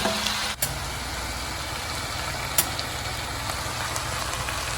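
Steady sizzling hiss from a pot of rice cooking with melted butter, with a sharp click about half a second in and another about two and a half seconds in.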